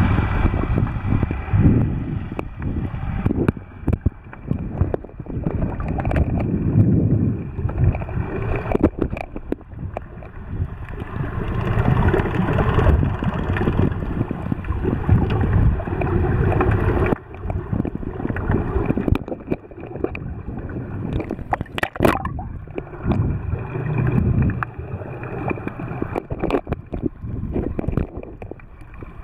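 Muffled underwater water noise picked up by a submerged camera: a steady low rumble and sloshing, with scattered clicks and bubbling.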